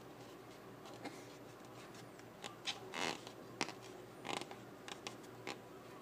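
Fingers rubbing and smoothing tape wrapped around a tube: a string of short scratchy rubs at irregular intervals, the loudest about three seconds in.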